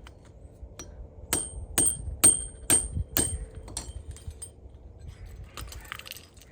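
Hammer blows on a steel chain ring held against a flat metal surface: about six ringing strikes roughly half a second apart, then a couple of lighter taps. This is metal hardware being hammered while a new O-ring is fitted to a dog chain.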